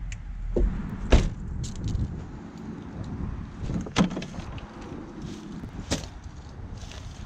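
Car doors being handled: a sharp slam about a second in, a latch clunk at about four seconds as the door handle is pulled, and a smaller knock near six seconds, with light clicks in between.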